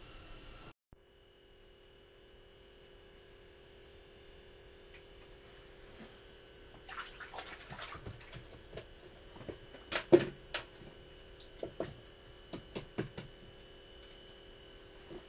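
A steady electrical hum with a few thin high whining tones. From about halfway, scattered small clicks and knocks of hands handling fishing tackle, the sharpest one near the middle.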